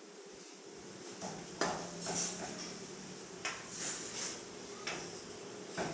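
Cutlery and dishes clinking and clattering in irregular sharp knocks, about half a dozen over a few seconds, over a steady low hum.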